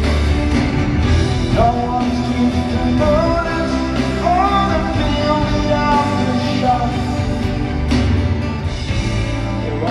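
Live band music with piano, electric guitar and strings, heard through a large arena's sound system, with a melodic sung line over it in the middle of the stretch.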